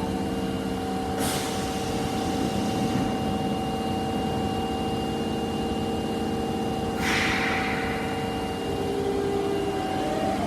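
Osaka Metro Tanimachi Line 22 series subway train standing with a steady hum of several tones. Two short bursts of air-brake hissing come about a second in and about seven seconds in, and near the end a rising whine starts as the train begins to move.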